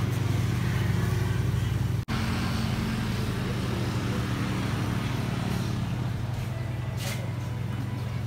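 Refrigerated showcase's cooling unit running with a steady low mechanical hum as the cabinet pulls down from about 12 degrees; the sound cuts out for an instant about two seconds in.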